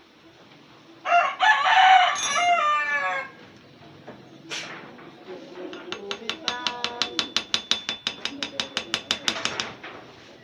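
A rooster crowing once, a loud call of about two seconds that drops in pitch at its end. Later a fainter rapid run of clicks, about ten a second, lasting a few seconds.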